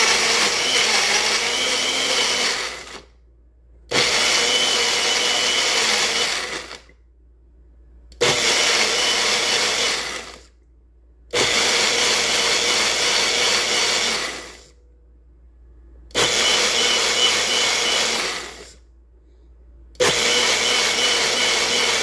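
Bullet blender motor with a six-blade cutter running in six pushes of about two to three seconds each, with short pauses between, each run ending in a quick spin-down. It is blending a drink of apple, avocado, orange, grapes and water.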